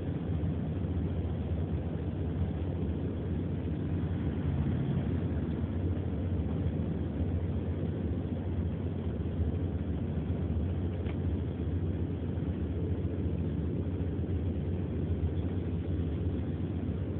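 Steady low rumble of a car heard from inside the cabin, with one faint click about eleven seconds in.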